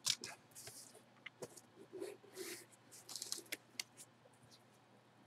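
Gloved hands handling and opening a cardboard mailer box: faint short scrapes of cardboard sliding and rubbing, with light taps and clicks.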